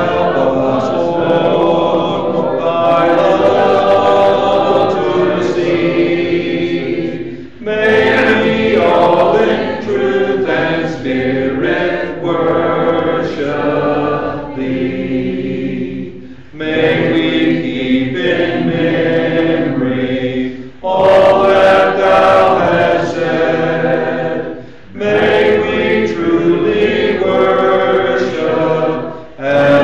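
Church congregation singing a hymn a cappella, many voices together, with brief breaths between phrases about every eight or nine seconds.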